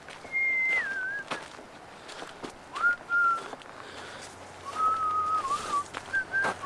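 A person whistling a slow tune: held, pure notes with slides between them, stepping down in pitch over the phrase, plus a few faint clicks.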